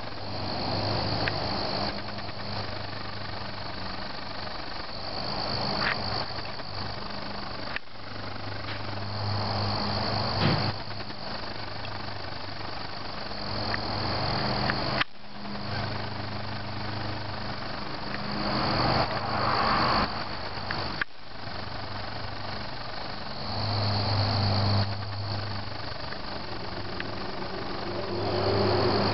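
Crickets chirping as a steady high trill over a low hum that swells and fades every few seconds, with brief breaks in the sound at a few edit cuts.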